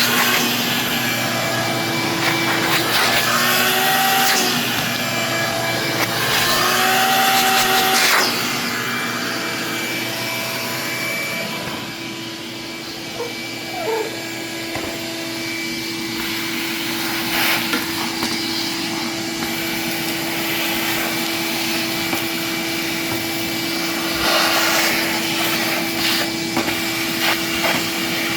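Ridgid WD12460 12-gallon wet/dry shop vacuum running: a steady motor whine over rushing air. Its pitch wavers and dips during the first eight seconds, then holds steady, with a few brief rattles later on.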